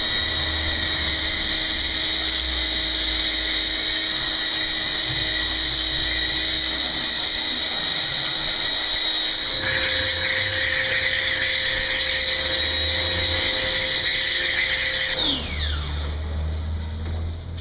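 Electric pressure washer motor running with a steady high whine over a low hum. Its tone shifts about ten seconds in, and near the end it winds down with a falling whine.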